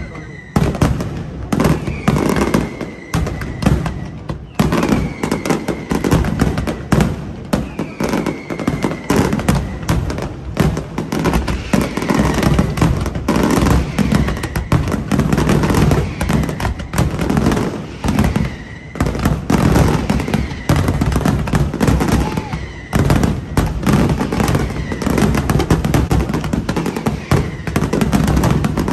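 Fireworks display: a dense, continuous barrage of aerial shell bursts and crackling low-level firecracker bursts, with short falling whistles recurring every few seconds.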